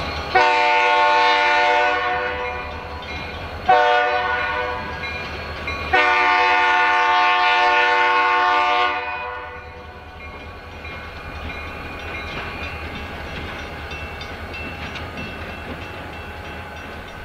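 Multi-chime air horn of an EMD SD40-series diesel locomotive sounding for a road crossing: a long blast, a short one, then another long blast, the close of the standard grade-crossing signal. After the horn the locomotives' diesel engines keep up a low, steady rumble as they roll slowly toward the crossing.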